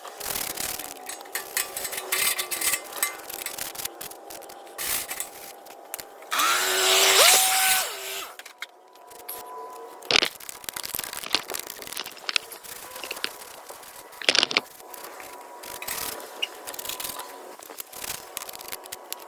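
Wire brush scrubbing the mower's metal deck, a steady run of short rough scraping strokes that take off rust and old paint. About six seconds in, a louder whir with a rising pitch lasts under two seconds. Two sharp knocks come later.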